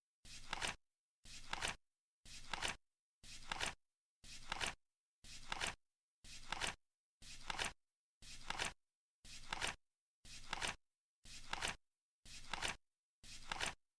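Flip clock's cards flapping over once a second, each flip a short rustle ending in a sharper clack.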